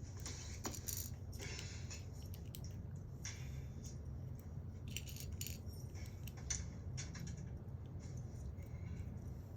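Small plastic LEGO pieces clicking and rattling as they are handled, in short irregular bursts over a steady low hum.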